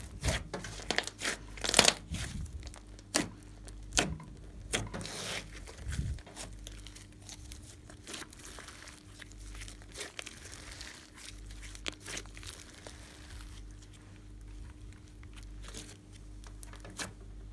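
Hands kneading, squeezing and stretching a large lump of glossy slime, giving sticky clicks, pops and crackles. These come thick and loud in the first few seconds, then soften and thin out.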